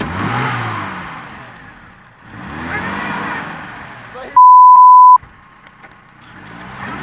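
Lada Niva's engine revving twice as the car pushes through mud, the second rev briefly rising in pitch. About four and a half seconds in, a loud, steady one-pitch censor bleep cuts in for under a second and is the loudest sound.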